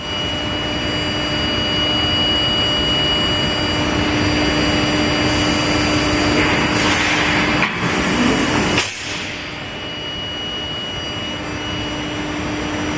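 Long bar induction hardening and tempering line running: steady machine noise with a high whine and a low hum. A hissing rush builds from about five seconds in and cuts off suddenly near nine seconds, and the whine and hum drop out and come back a few seconds later.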